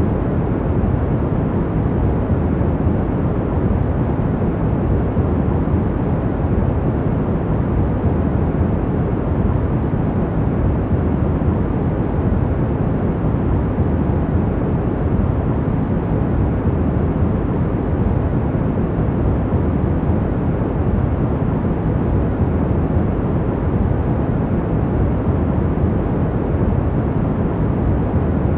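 Steady, even rushing noise from a sleep-noise track, deep and weighted to the bass rather than hissy, with no changes.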